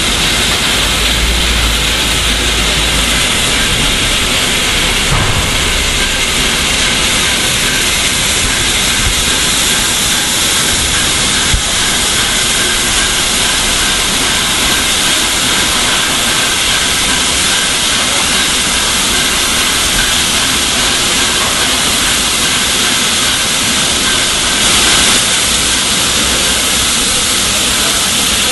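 LNER A4 streamlined steam locomotive No. 4464 standing with steam hissing: a loud, steady hiss with no exhaust beats.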